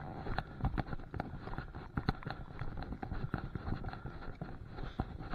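Footsteps on a narrow path, with clothing and gear rustling through dry bracken and grass: an irregular run of soft thuds and rustles.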